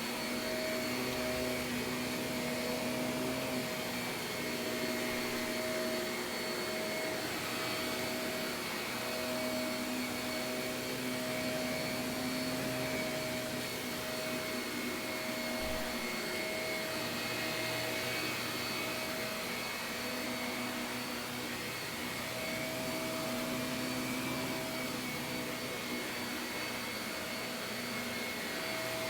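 Shark vacuum cleaner running continuously on carpet, a steady motor whine and airflow hum whose pitch wavers slightly and briefly dips at moments.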